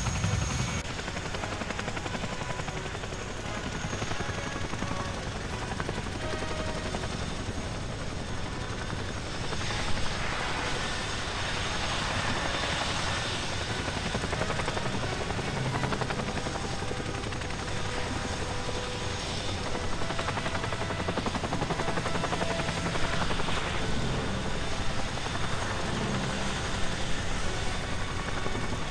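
RAF military helicopters' rotors beating steadily, the chopping noise swelling louder a third of the way in and again later.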